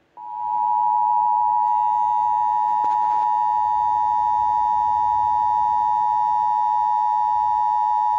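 Emergency Alert System attention signal: a steady, loud two-tone alarm tone, played over a computer's speakers as the lead-in to a severe thunderstorm warning. It begins at once and holds unbroken, with a faint click about three seconds in.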